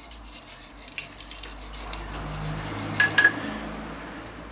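Hand-turned salt mill grinding coarse salt, a rapid gritty crackle that stops about three and a half seconds in. About three seconds in come two sharp, ringing clinks of metal on the stainless-steel platter.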